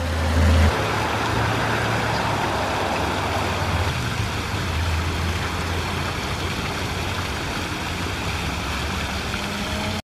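Water from a tiered fountain's jets splashing steadily into its basin, a continuous rushing with a low rumble underneath.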